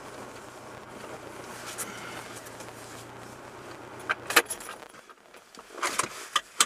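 A car engine idling with a steady low hum that stops about four seconds in, as the engine is switched off. Around that moment and again near the end come a few sharp clicks and rattles, the loudest sounds.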